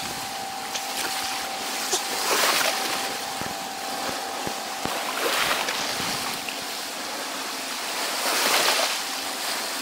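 Sea surf washing onto the shore, its noise swelling and easing every few seconds, with a faint steady tone running under it.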